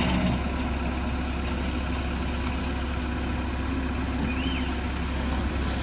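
Diesel excavator engine idling steadily, an even low hum with no revving.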